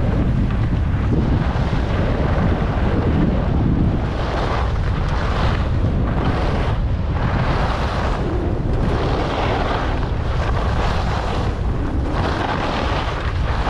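Wind rushing over the microphone of a camera carried while skiing downhill. From about four seconds in, the scraping hiss of skis on snow swells and fades about once a second, turn after turn.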